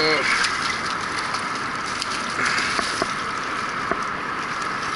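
Steady rushing of river water pouring over the dam, with a few faint clicks.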